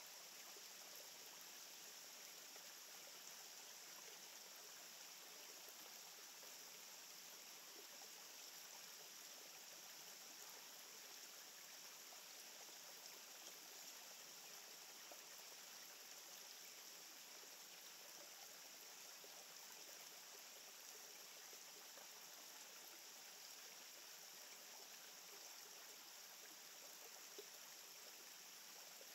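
Faint, steady rushing noise with no distinct events, just above silence.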